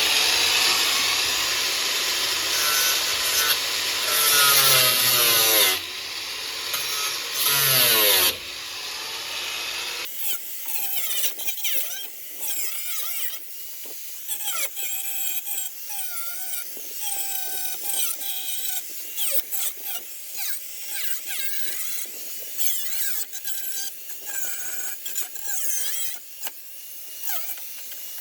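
Angle grinder cutting through the rusted sheet metal of a running board, a loud harsh whine whose pitch slides up and down as the disc bites and eases off. About ten seconds in the sound changes abruptly to a thinner, fainter one with wavering tones and quick clicks.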